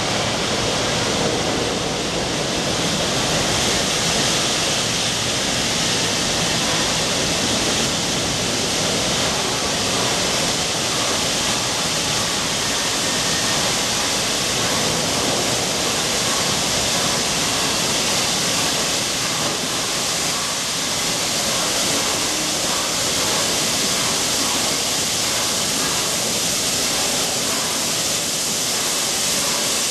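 Steady hiss of escaping steam from the A1 Pacific steam locomotive Tornado as it drifts slowly into the station, holding an even level throughout.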